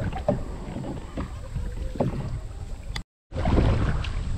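A canoe being paddled: the paddle dips and splashes, with a few light knocks and wind rumbling on the microphone. The sound cuts out briefly about three seconds in.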